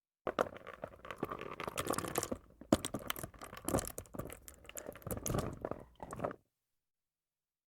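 Crunching and tearing sound effect: a dense, irregular run of crackles and sharp clicks lasting about six seconds, then cutting off suddenly.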